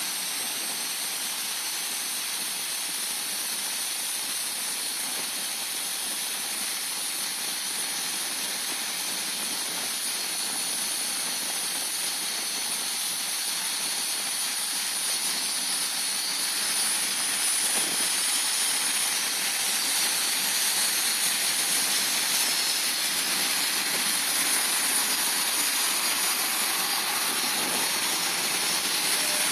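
BAE Hawk T1 jets' Rolls-Royce Turbomeca Adour turbofans running as the jets taxi, a steady high whine and hiss. It grows louder from about halfway as one jet taxis close by.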